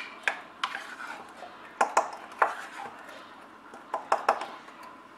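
Wooden spatula stirring a thick sauce in a small stainless-steel pot, scraping and knocking against the metal in irregular sharp clicks.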